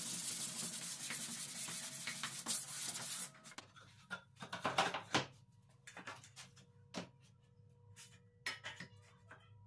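Sanding block rubbed back and forth along a plywood edge, a steady scraping for about the first three seconds. After that come scattered knocks and scrapes as a plywood strip and an aluminium tube are slid and set down on the wooden workbench.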